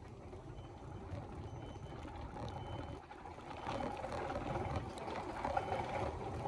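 Wheeled cart rolling along a corridor floor: a faint, steady low rumble that grows a little louder about halfway through.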